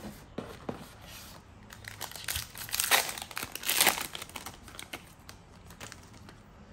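Wrapper of a Panini Prizm trading-card pack crinkling as it is opened, loudest about three and four seconds in, with lighter clicks of cards being handled before and after.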